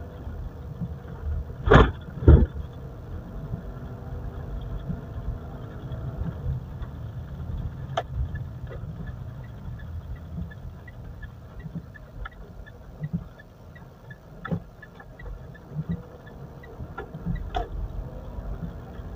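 Car on a test drive: steady low engine and road rumble, with two loud thumps about two seconds in and a few sharper knocks later. No brake squeal is heard; the screech is gone after the brake pad work.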